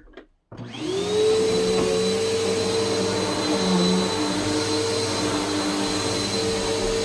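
Vacuum cleaner switched on about half a second in, its motor spinning up and then running steadily with a whine over a rush of air.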